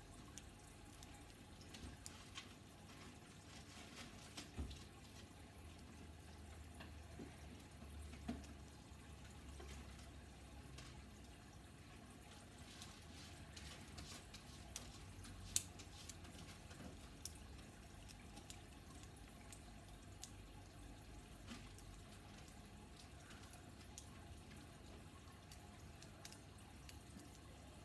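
Near silence with scattered faint clicks and taps of a plastic Bakugan figure being folded by hand into its ball form; one sharper click about halfway through.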